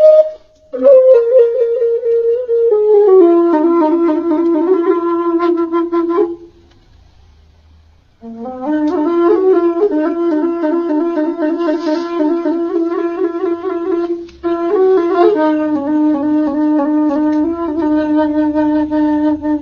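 A solo woodwind instrument, flute-like, playing a melody of held, wavering notes that step downward in pitch. It plays in phrases broken by short breaths, with a pause of about two seconds near the middle.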